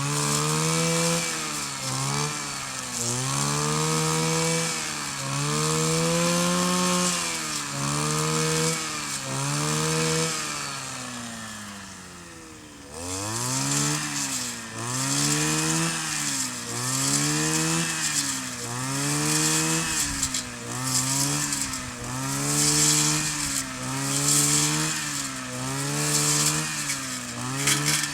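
Kioritz 260 two-stroke brush cutter engine revved up and down over and over, about once a second. About eleven seconds in it drops back to a quieter idle, then picks up and keeps revving in quicker cycles.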